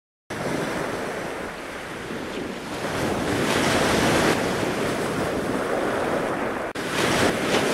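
Sea surf and wind rushing over the microphone, a steady noisy roar that starts abruptly and swells about three seconds in. It drops out for an instant near seven seconds.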